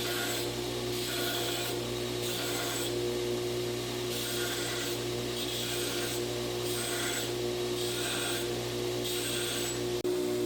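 A grinder's motor runs with a steady hum while forged steel is pressed to it in repeated passes, a rasping burst about once a second. This is the final grinding of a hand-forged tomahawk head.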